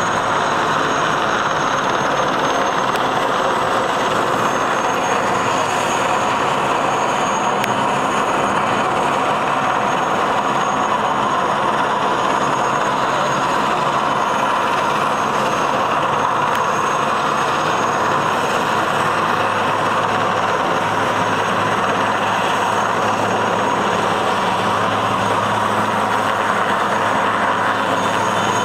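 Military transport helicopter hovering: loud, steady rotor and turbine noise.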